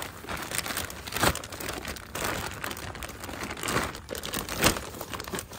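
Thin clear plastic packaging bag crinkling and rustling as a toy helicopter is pulled out of it, with several sharper crackles along the way.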